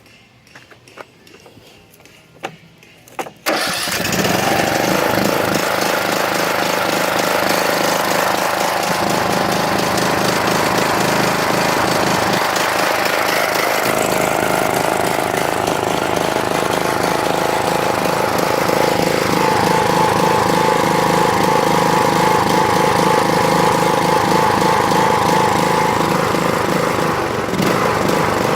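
Troy-Bilt Pony riding mower engine catching about three and a half seconds in, running on its own fuel without starting fluid, then running steadily. Its pitch shifts at about 19 seconds and drops a little near the end.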